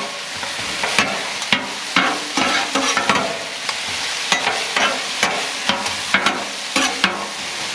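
Ground beef, broccoli and onions sizzling on a steel Blackstone griddle top, with two metal spatulas scraping and clacking against the steel as they toss the stir-fry, at irregular intervals about twice a second.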